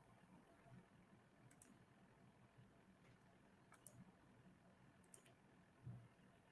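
Near silence with three faint, sharp double clicks a second or two apart, and a soft low thump near the end.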